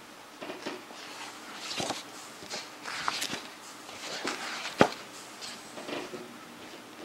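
Pages of a large, heavy hardcover book being turned and handled: a run of short paper rustles and slides, with one sharp tap or click a little before the five-second mark.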